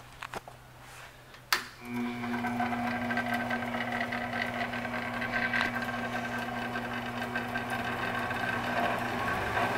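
A sharp click about a second and a half in, then the JET 7" x 12" variable-speed metal-cutting bandsaw starts up and runs steadily, a motor hum with a higher whine over it.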